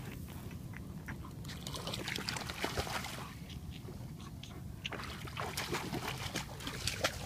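A husky wading through shallow lake water, its steps splashing and sloshing; the splashes come quicker and more often in the last two seconds or so.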